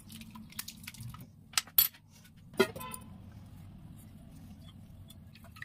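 Stainless-steel kitchen utensils clinking: a few sharp metallic clinks about one and a half to three seconds in, the last one ringing briefly, as a steel pan and strainer knock against each other and the counter. A faint steady hum runs underneath.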